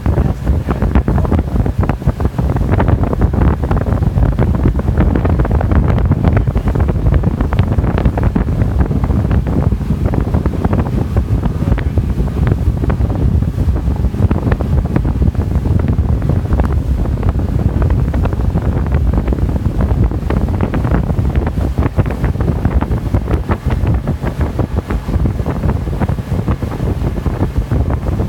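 Steady wind buffeting the microphone aboard a motorboat underway, over the boat's engine and the rush of water past the hull.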